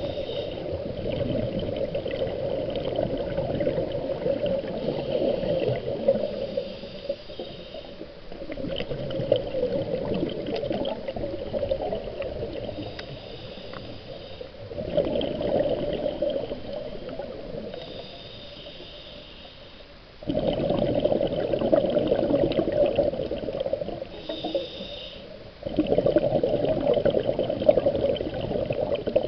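Muffled water noise picked up by a camera held underwater: sloshing and gurgling in stretches, two of which start abruptly near the end, with a faint high whine that comes and goes.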